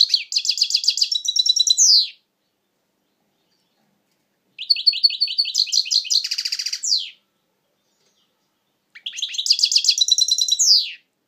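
European goldfinch singing in three phrases of rapid, twittering notes, each ending in a quick downward sweep: one ends about two seconds in, the next runs from about four and a half to seven seconds with a brief buzzy note near its end, and the third comes near the end.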